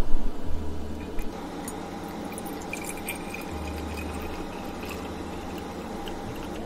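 Hot water poured from a kettle into the metal water bath of a tabletop sake warmer, loudest in the first second or so; then a thinner stream of sake poured from a glass bottle into a ceramic sake flask.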